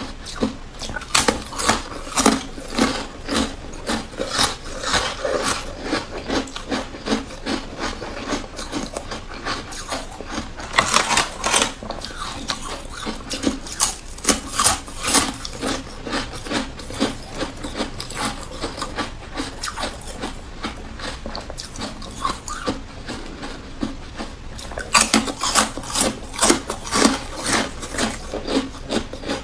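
Pink carbonated ice being bitten and chewed: a steady run of crisp crunches and short cracks, thickest about eleven seconds in, again around fifteen seconds, and near the end.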